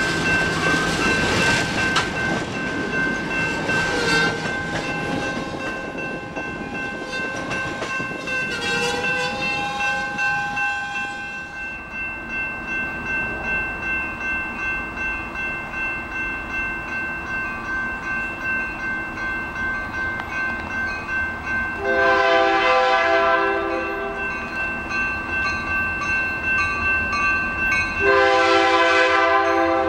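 Grade-crossing warning bells ringing steadily while bilevel passenger cars roll past with rail clatter. After a cut, the bells keep ringing at another crossing, and an approaching diesel locomotive sounds its horn: one blast of about two seconds two-thirds of the way in, and another starting near the end.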